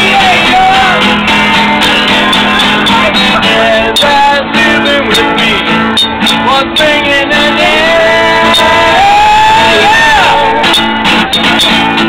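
Acoustic guitar being strummed, with people singing loudly over it.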